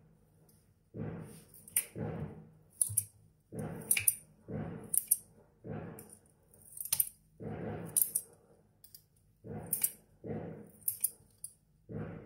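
Kitchen scissors snipping shredded cooked chicken, about once a second, with sharp clicks of the blades. Softer dull handling sounds come between the snips.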